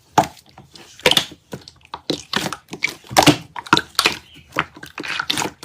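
Slime being squished and pressed by hand, giving a quick, irregular run of crackles and pops.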